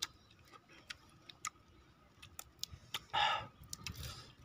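Charred, crisp roasted meat crackling as it is torn apart by hand: scattered sharp clicks and snaps, with one louder, longer crackle about three seconds in.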